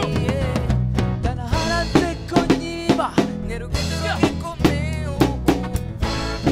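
Live Afropop band playing: a drum kit beat with bass drum and snare under bass guitar and keyboards, with a melodic line sliding in pitch above.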